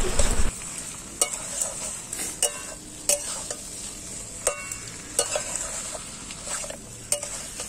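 Flat metal spatula scraping and knocking against a metal kadai, a stroke every half second to a second, as mutton is stirred and fried in oil with onions and spices, over a steady sizzle. This is the kosha stage, the meat being browned in the spice paste.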